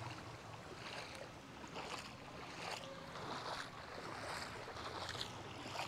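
Faint sloshing and lapping of floodwater, in soft irregular swells.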